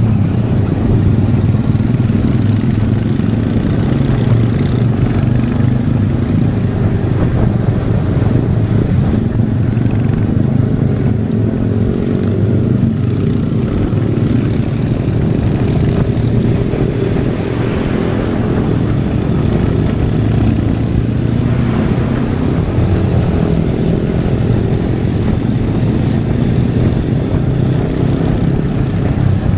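Royal Enfield Hunter 350's 349 cc single-cylinder engine and exhaust running steadily on the move, its pitch easing off and rising again about midway.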